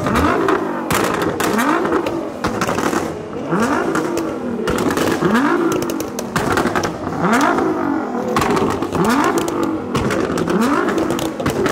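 Nissan R35 GT-R's twin-turbo V6, on E85 with bolt-on exhaust, being revved hard over and over, about one rev a second, each rev rising in pitch. Sharp exhaust pops and crackles come as each rev falls away, the sound of the exhaust shooting flames.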